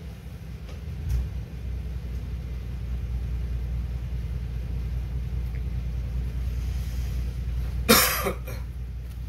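Ferry's engines giving a steady low rumble that grows a little louder about a second in. A person coughs briefly about eight seconds in.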